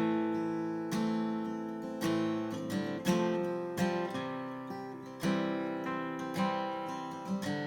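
Martin CEO-7 acoustic guitar strummed in chords, a new chord struck about once a second and left to ring and fade before the next.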